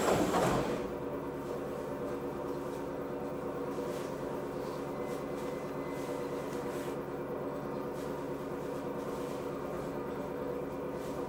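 Steady hum of an electric commuter train heard from inside the carriage as it pulls slowly away from a stop, with several steady tones running through it. A short louder rush of noise opens the sound.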